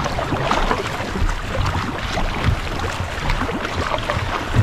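Fishing kayak being paddled at sea: the paddle blades dip and splash and water laps against the hull, an irregular run of soft splashes over a steady wash.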